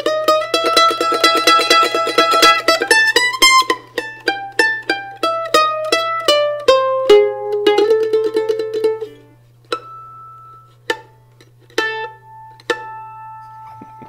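Solo F-style mandolin playing a tune in A minor. The fast tremolo picking on held notes slides upward, then thins out to single plucked notes, and the last note is left ringing near the end.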